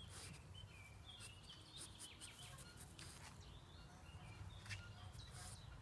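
Faint rustling and crackling as a French bulldog rolls in clover and munches it, with a few faint small-bird chirps.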